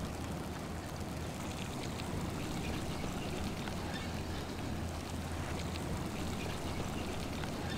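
Steady wind blowing across an open snowfield, a low rumbling hiss with wind buffeting the microphone.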